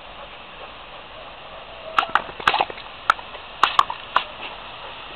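A Labrador snapping its jaws at the spray from a garden hose: a run of about eight sharp snaps and splashes starting about two seconds in, over a steady hiss.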